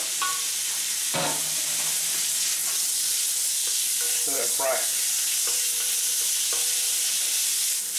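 Minced pork with onions and garlic sizzling in a hot wok: a steady frying hiss. A few brief scrapes and clatters of stirring come about a second in and again around four to five seconds in.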